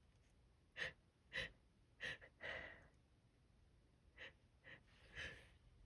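A person's short, hitching gasps, about seven quick breaths in two runs with a pause between: the hitches that build up before a sneeze.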